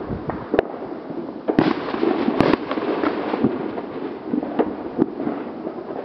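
Fireworks and firecrackers going off: a continuous crackle of pops with several sharp bangs, two of them close together about two and a half seconds in.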